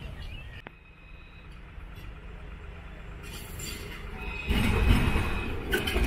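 A Melbourne C-class tram approaching and passing close on the light-rail track, getting loud about four and a half seconds in: wheels running on the rails with a steady high whine and clicks over the rail joints.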